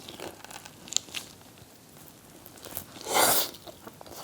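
Biting into and chewing crisp-surfaced roast whole pork belly: a few small crunches about a second in, then one louder, longer crunch about three seconds in.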